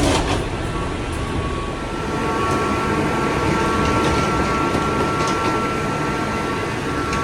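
Airbus A321neo cabin noise: a steady low rumble and rush with a few steady high-pitched tones. A sharp knock comes right at the start, and a few faint clicks follow.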